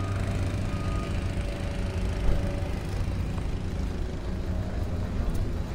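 An engine running steadily at idle, giving a continuous low hum.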